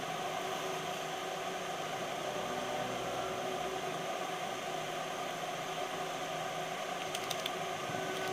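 Steady background hiss and whir of room noise, even throughout, with a few faint ticks about seven seconds in.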